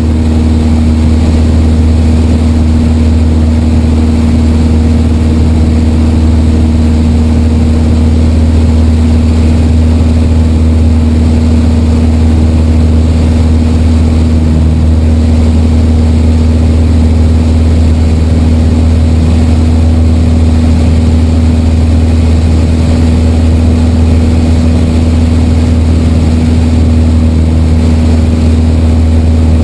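Piper Warrior's four-cylinder engine and propeller droning steadily in flight, heard inside the cockpit.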